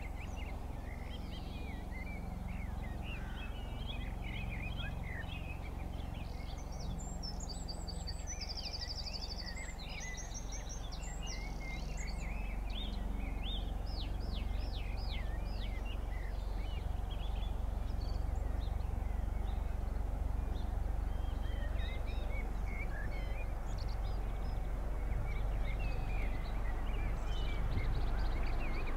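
Bell Boeing V-22 Osprey tiltrotor's rotors and turboshaft engines as a low, steady drone that grows gradually louder as the aircraft approaches head-on. Birds chirp and trill over it, most busily in the first half.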